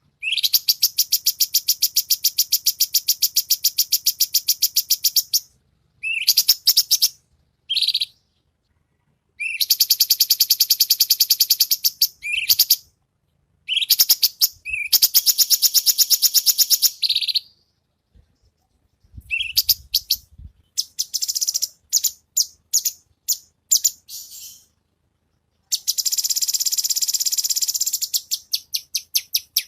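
A cucak cungkok singing in loud, rapid-fire trills: long runs of fast, evenly repeated high notes lasting several seconds each, broken by short phrases and brief pauses, with a string of separate clipped notes near the end.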